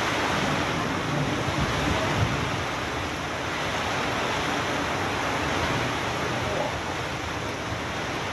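Heavy rain pouring down in a windstorm: a steady rushing hiss of rain on the street and pavement.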